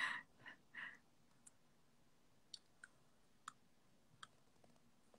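Near silence in a small room: a couple of soft breathy sounds in the first second, then a handful of faint, sharp clicks scattered about half a second to a second apart.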